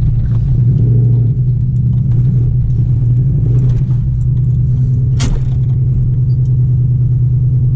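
Car engine idling steadily with a low rumble, having just started. There is a single sharp click about five seconds in.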